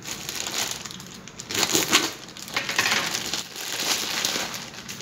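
Plastic mailer packet crinkling and rustling in irregular bursts as it is handled and opened.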